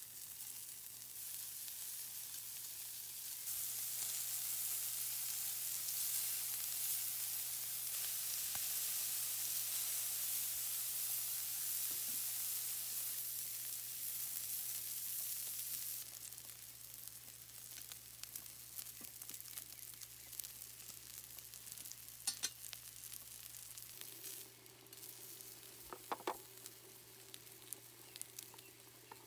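Thin slices of meat sizzling on a hot perforated steel grill plate over a wood fire. The sizzle is loudest through the first half and softer later, with a few sharp metallic clicks in the second half.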